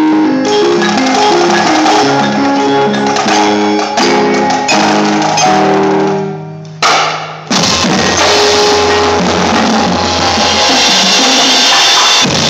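Indoor percussion ensemble playing: a stepping melody on mallet keyboards that dies away about six seconds in, then the full ensemble comes in loud, the drumline's snares, tenors and bass drums over a low held bass note.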